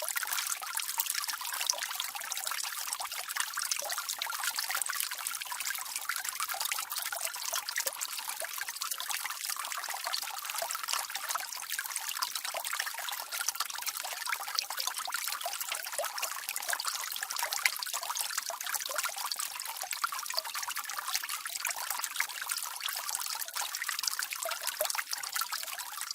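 Jet of water from a garden hose running steadily: an even hiss of splashing water, mostly high-pitched with little low rumble.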